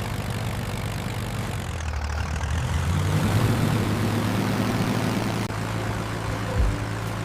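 Tractor engines running hard under full throttle, a steady low drone under a rush of noise that grows louder about three seconds in.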